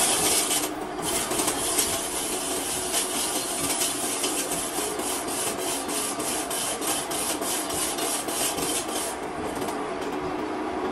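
Rhythmic rasping strokes, about three a second, over a steady hum; the strokes stop about nine seconds in.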